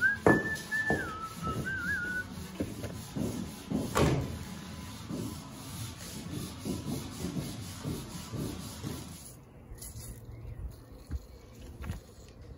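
A towel rubbing and wiping over a chainsaw guide bar's nose in irregular strokes, with two sharp knocks, one at the start and one about four seconds in. A short whistled phrase of a few notes sounds over the first two seconds.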